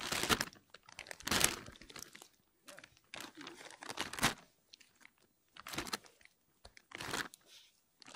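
A thin plastic bag crinkling and rustling in short, irregular bursts as fish are handled and dropped into it.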